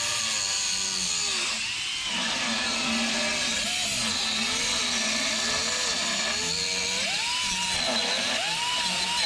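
Handheld power tool running, its whine dipping in pitch and climbing back again and again as it is loaded and eased off.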